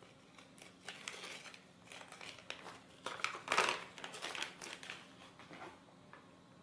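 Small clear plastic parts bag crinkling as it is handled, in short irregular rustles with the loudest about halfway through.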